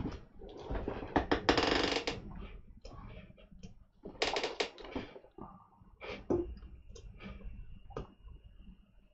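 Computer keyboard keys and clicks, in short bursts of rapid key presses followed by a few single clicks spaced out near the end.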